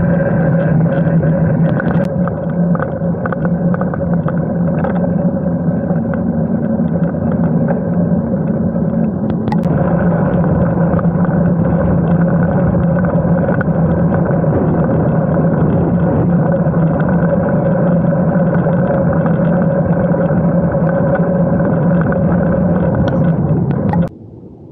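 Wind and rolling noise picked up by a handlebar-mounted camera on a moving road bike: a loud, steady droning hum that cuts off suddenly near the end.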